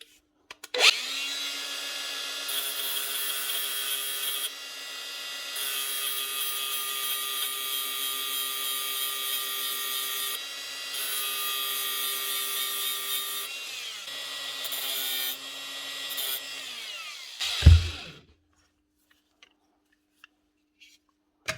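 Grinder running with a steady motor whine, its disc grinding metal in several short passes as it cuts back the inner race of a seized bearing on a motor armature shaft. The grinder winds down near the middle, runs again, then winds down once more, and a single loud knock follows.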